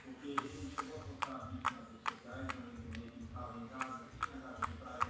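Homemade slime being squeezed and folded by hand, giving sharp clicks about every 0.4 s as air pockets in it pop, over a faint steady hum.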